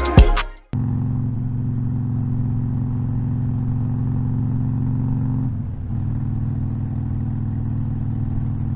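Harley-Davidson Iron 1200's air-cooled V-twin engine running steadily at a low, even speed, with a brief dip about five and a half seconds in. The end of an intro music track cuts off just before the engine is heard.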